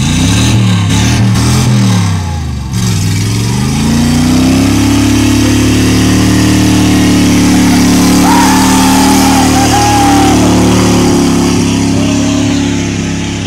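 Chevy Blazer engine revving up and down repeatedly as the truck rocks in a mud hole, then climbing to high revs and held there as it pulls out, fading near the end as it drives away.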